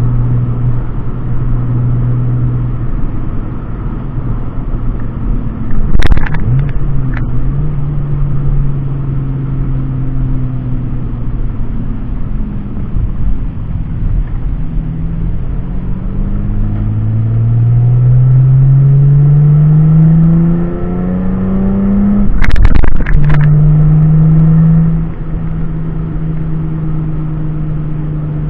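2JZ straight-six engine and exhaust of a Lexus IS300 heard from inside the cabin while driving through the gears: the engine note changes pitch, climbs steadily under acceleration, then drops at an upshift. Short sharp bursts of noise sound at two gear changes, about six seconds in and near the end.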